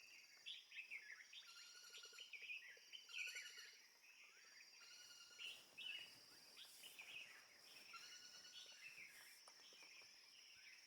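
Faint chorus of many small wild birds chirping and trilling, with short calls overlapping throughout, over a steady high-pitched hum.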